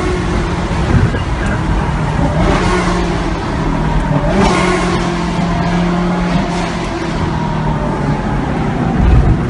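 Car engine running hard and revving up and down, as during street drifting, with two bursts of rushing noise about two and a half and four and a half seconds in.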